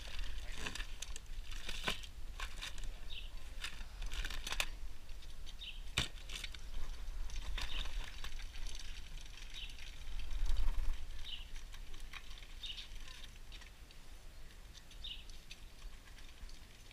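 Wind buffeting the microphone, swelling about two-thirds of the way in, with a few sharp clicks and faint distant voices.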